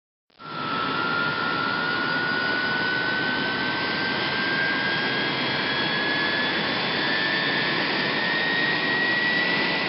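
Boeing 767 jet engine starting: a steady rush with a whine that rises slowly in pitch as the engine spools up, starting abruptly.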